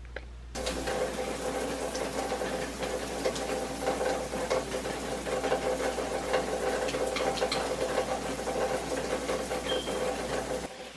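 Shower running: water spraying from a wall-mounted showerhead onto tile, a steady hiss with a steady hum under it. It starts about half a second in and stops abruptly just before the end.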